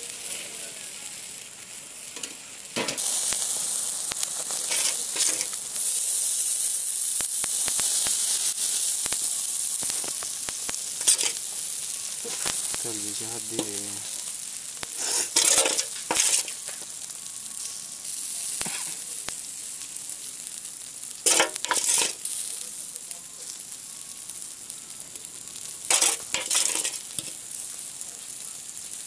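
Whole koral fish sizzling over a charcoal grill, a steady hiss that grows louder about three seconds in. A few short, louder bursts of sizzling come as it is basted with a spoon.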